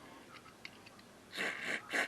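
Short hissing spray blasts of carburetor cleaner forced through the passages of a plastic Briggs & Stratton carburetor during cleaning: a few faint ticks, then about a second and a half in a loud hiss in two quick pulses, ending in a sharp click.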